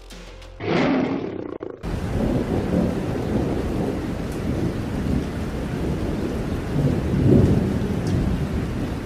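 Thunderstorm sound effect: a sudden crash of thunder about half a second in, then steady heavy rain with rolling thunder that swells near the end.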